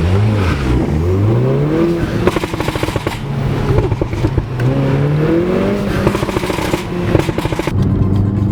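A car engine revving up several times, its pitch rising with each rev. Between the revs comes a rapid, evenly spaced crackle of exhaust pops.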